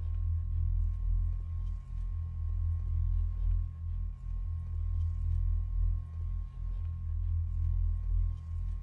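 Background noise in a quiet room: an uneven low rumble with a thin, steady high tone over it and a few faint ticks.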